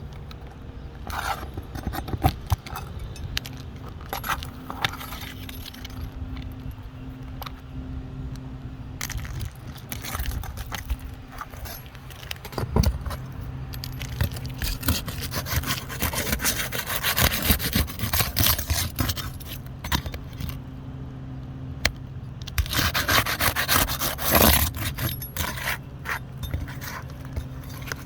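Repeated scraping, rubbing and small rattling clicks of objects being handled, over a steady low hum. The scraping is densest in the middle and again shortly before the end.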